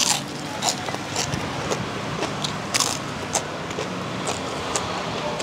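Eating sounds: irregular sharp crunches and clicks as crispy food is bitten and chewed, over a steady hum of road traffic.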